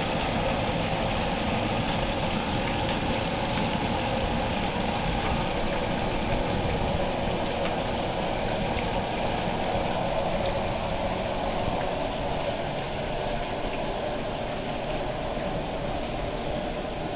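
Steady sizzling of duck pieces deep-frying in a wok of hot oil over a gas burner, with the burner's flame running underneath, frying until crispy. It gets a little fainter near the end.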